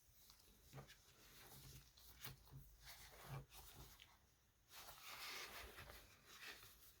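Near silence with faint handling noises from a book: scattered soft clicks and a brief paper rustle about five seconds in.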